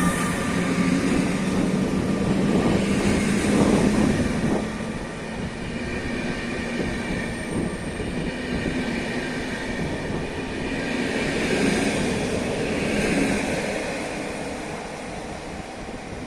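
Train running past on the tracks, a steady rolling wheel-and-rail noise with a few held tones near the start, fading as it moves away.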